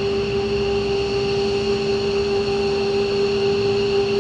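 F-15 Eagle jets running on the ground at idle: a steady jet whine with a constant hum underneath, holding one pitch.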